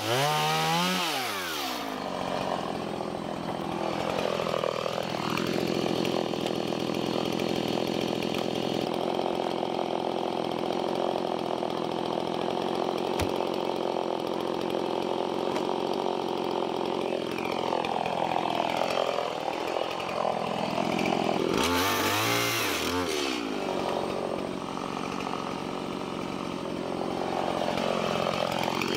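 Two-stroke chainsaw running continuously. Its engine speed drops off the throttle at the start, then falls and climbs again several times.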